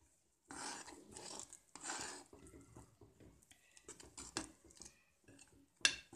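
Metal spoon stirring a pot of syrup thick with chopped dry fruits and nuts, in uneven scraping, sloshing strokes against the metal pot, with a sharp clink near the end.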